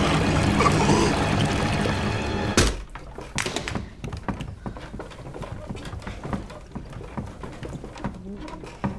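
Water gushing from a garden hose under dramatic music, cut off abruptly by a heavy thunk about two and a half seconds in. After that only faint scattered knocks and ticks remain.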